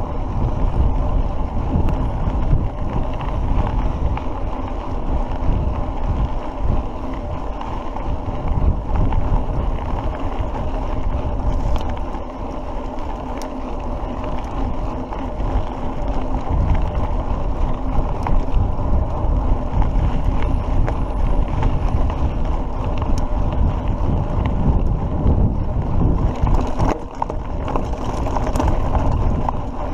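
Wind buffeting the microphone of a camera riding on a moving mountain bike, over the steady hiss and rumble of the tyres on a dirt track. Near the end there are denser clicks and rattles as the bike crosses loose brick rubble.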